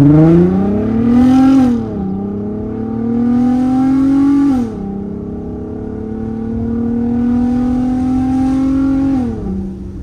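Volkswagen R32's 3.2-litre VR6 engine under hard acceleration, heard from inside the cabin. The revs climb and drop sharply at upshifts about two seconds in and again near five seconds, then climb more slowly and fall away near the end.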